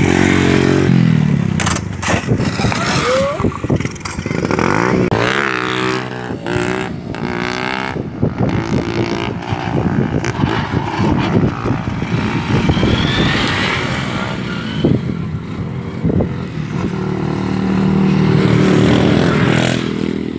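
Small motorcycle engines revving and passing as riders hold wheelies, the engine note rising and falling in pitch; it swells again a few seconds before the end.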